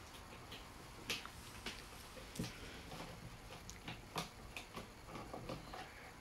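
Faint, irregular small plastic clicks and taps as a small solar panel and its mount are handled and adjusted.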